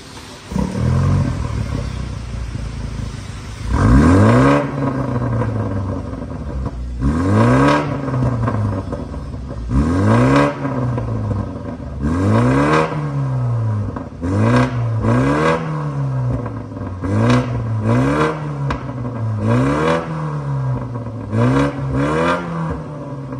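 BMW 430i G22's turbocharged four-cylinder engine breathing through an aftermarket catback exhaust, idling and then revved in about ten short throttle blips, each rising and falling in pitch, the first and largest about four seconds in. The tone is loud and aggressive.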